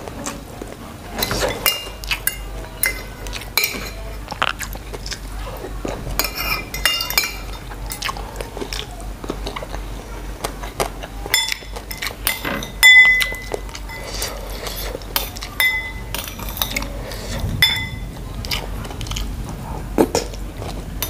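Metal spoon and fork clinking and scraping against a ceramic plate and soup bowl, with chewing between; the loudest is a ringing clink about 13 seconds in.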